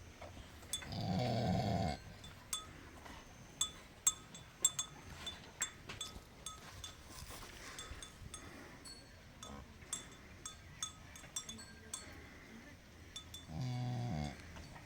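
Cattle calling twice with a short, low, bleating moo, once near the start and again near the end, over scattered light clicks and clinks.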